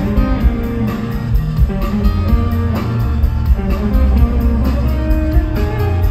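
Live rock band playing, guitar to the fore over bass and drums with a steady beat.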